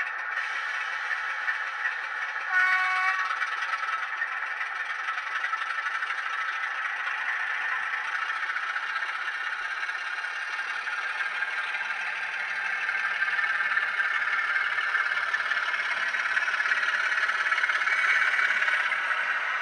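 Recorded class 25 diesel sound (Sulzer engine) played by an ESU LokSound V5 decoder through a tiny sugar cube speaker in an N gauge model, running steadily with a short horn blast about three seconds in. From about twelve seconds on the engine sound grows louder as the model moves along the track.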